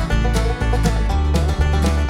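Music with a steady beat and strong bass.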